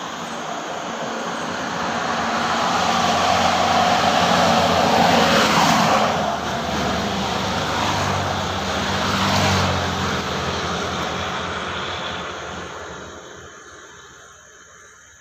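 A passing engine: a motor sound swells over about five seconds, stays loud with its pitch shifting, then fades away near the end.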